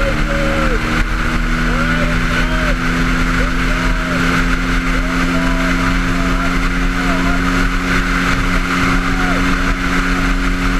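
Yamaha WR250X's 250 cc single-cylinder four-stroke engine, with an FMF Q4 exhaust, holding steady revs at freeway cruising speed: an even engine drone under heavy wind rush.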